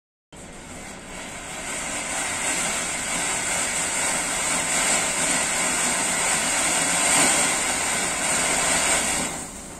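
A 'White House' ground fountain firework from Shammah Fireworks spraying sparks with a steady, loud rushing hiss. The hiss builds over the first couple of seconds and eases off near the end.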